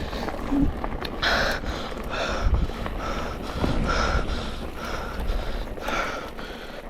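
Mountain biker breathing hard, about one breath a second, over a steady low rumble of wind and riding on the microphone.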